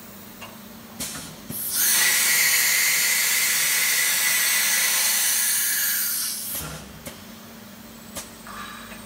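CNC engraving machine doing an automatic tool change: a couple of clicks, then a loud steady hiss of compressed air from the spindle's pneumatic tool release for about five seconds, which tails off and is followed by a few sharp clicks. A steady machine hum runs underneath.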